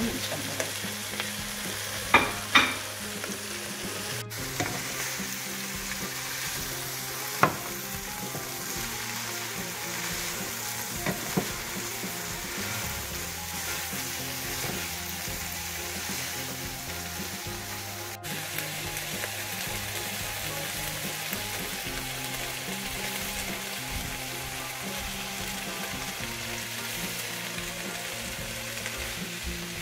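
Chopped collard greens frying in hot oil and onions in a nonstick pot, with a steady sizzle as a wooden spatula stirs them. A few sharp knocks sound in the first several seconds.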